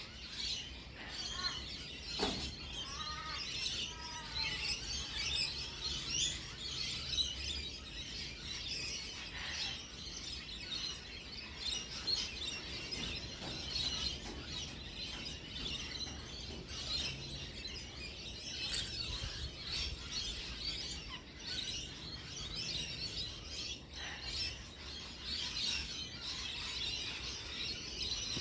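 A flock of birds chirping and calling over one another in a continuous dense chatter, with a few gliding whistled calls a couple of seconds in.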